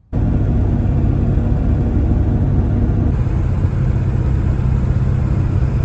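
Steady engine drone and road noise inside the cab of a Ford truck cruising on a highway: a loud, low, even rumble with a faint hum in it.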